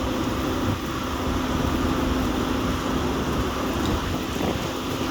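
Fire apparatus running steadily at a building fire: a constant low engine hum under a hissing wash like water spray.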